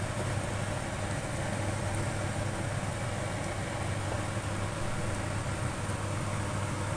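Chicken wings boiling hard in a wok of reducing Coke sauce: a steady bubbling, sizzling hiss over a steady low hum.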